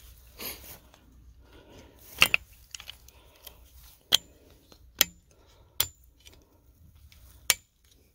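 A yellow plastic snap-on insulator being worked onto a steel T-post: a handful of sharp clicks and clinks spread over several seconds, the loudest about two seconds in, some with a brief faint metallic ring.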